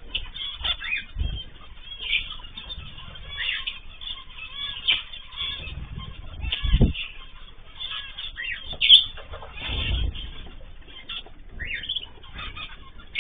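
Mixed aviary of small cage birds, cockatiels, zebra finches and canaries, chirping and calling in many short overlapping notes, with occasional bursts of wing flapping and low thuds.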